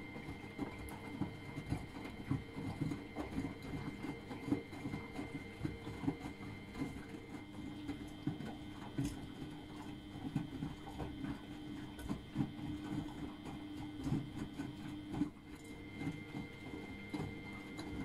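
Miele front-loading washing machine in its wash cycle, the drum turning wet laundry through the water: a steady hum with many small, irregular thumps and splashes.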